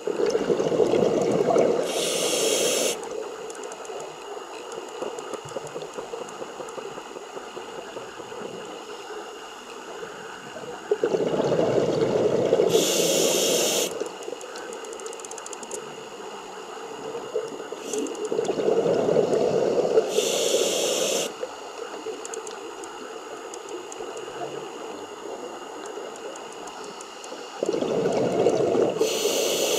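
Scuba diver breathing through a regulator underwater: four breaths roughly eight seconds apart, each a few seconds of rushing bubbly air with a short higher hiss near its end, and a quieter steady underwater background between them.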